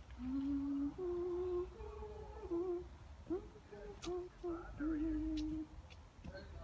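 Women humming a slow hymn tune in held notes that step up and down in pitch.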